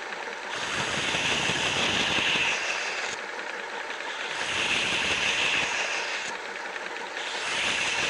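WorkSharp 3000 sharpener's motor running steadily while a knife blade is drawn slowly across its coarse abrasive belt three times. Each pass is a grinding hiss lasting about two seconds, with short breaks between passes.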